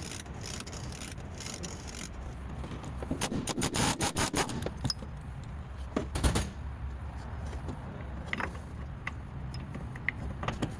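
Toyota Yaris front shock absorber top mount scraping and creaking as the steering is turned, with a run of rapid clicks, a louder creak about six seconds in and a few short squeaks later: the noise of a faulty strut mount.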